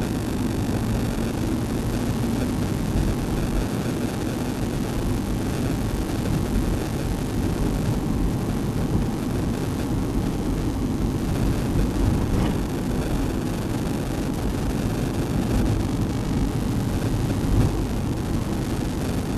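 Steady engine and road noise of a vehicle being driven, mostly a low rumble.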